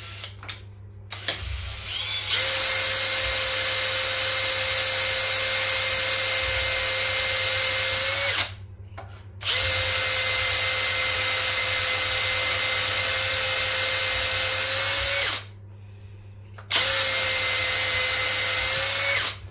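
Makita 18V cordless drill boring a hole into a milling machine's cast-iron column. The motor runs at a steady whine in three long runs with short pauses between them, and its pitch rises slightly just before each stop.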